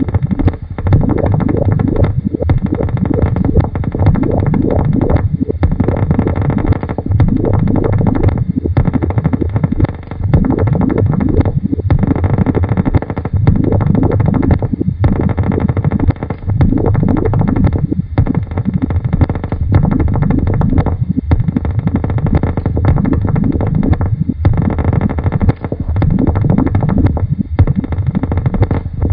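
Dense, rumbling experimental noise and tape music, thick in the low end, with many short pitch glides and brief dropouts every second or two.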